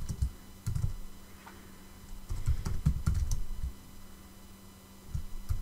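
Computer keyboard typing in short bursts of keystrokes with pauses between them, over a faint steady hum.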